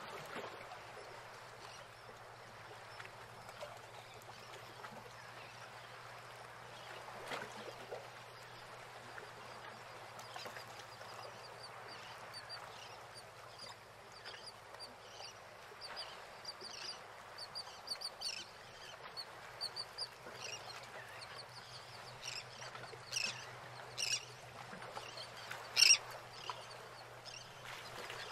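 Birds calling: many short, high calls that begin about ten seconds in and grow busier, with a few louder calls near the end, over a faint steady low hum.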